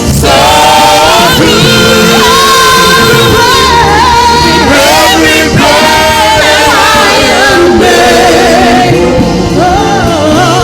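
Church choir singing a gospel worship song over instrumental accompaniment, with long wavering sung notes.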